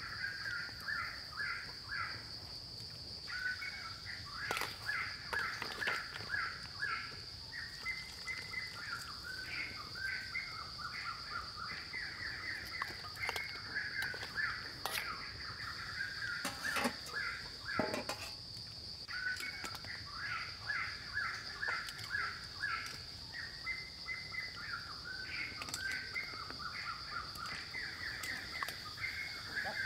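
Forest ambience: birds calling over and over, with a steady high-pitched insect drone underneath. A few sharp clicks or knocks stand out, bunched around the middle.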